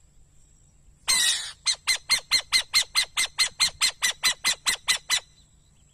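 An owl calling: one harsh screech about a second in, then a fast, even run of about seventeen sharp notes at roughly five a second that stops a little before the end.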